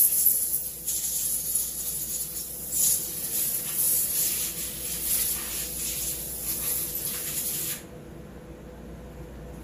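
Pressurized spray hissing in uneven surges, the sound of parts being blown or sprayed clean. It cuts off suddenly about eight seconds in. A steady low hum runs underneath.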